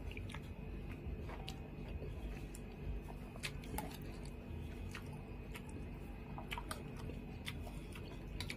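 Eating with a metal spoon from a plate: scattered light clicks and taps of the spoon and mouth, over a low steady hum.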